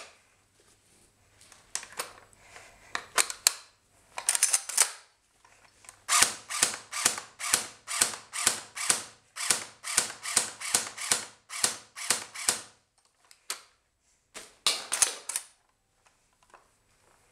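CYMA M14 airsoft electric gun firing: a few single shots, then from about six seconds in a slow, even string of about eighteen shots at roughly three a second with a low motor hum beneath, then two or three more shots near the end. The gun is running on a weak battery.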